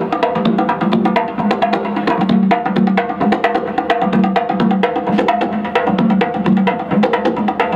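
Traditional Comorian dance music: fast, dense clacking percussion over a steady low drum beat about twice a second.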